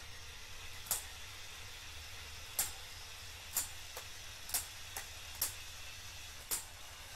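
Seven short, sharp clicks at irregular intervals, about one a second, over a steady low hum.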